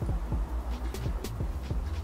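A person gulping water non-stop from a 1.5-litre plastic bottle: a fast, even run of swallows and glugs, several a second, each dropping in pitch, with light clicks from the plastic bottle.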